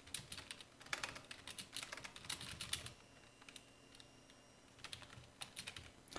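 Computer keyboard typing: two runs of quick keystrokes with a pause of about two seconds between them.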